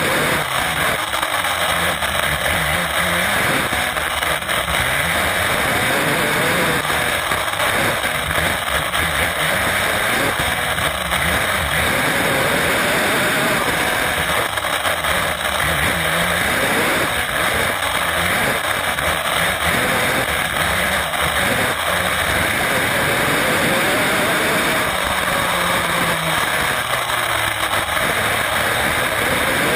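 Onboard sound of an HPI WR8 Flux 1/8-scale brushless electric RC rally car driven at speed: a steady hiss of running gear and tyres, with a whine that rises and falls as the car speeds up and slows.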